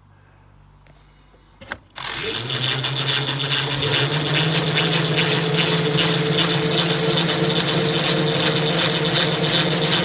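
Electric scooter hub-motor wheel starting up after a short click about two seconds in and driving the motorbike's back wheel: a loud steady hum over a rattle, rising in pitch for a couple of seconds as it speeds up, then holding steady.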